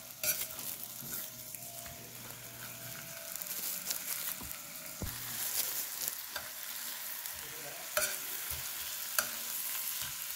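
Chicken breasts sizzling in hot oil in a stainless steel skillet, a steady frying hiss. Several sharp clicks and taps of a metal utensil against the pan come through as the pieces are turned over.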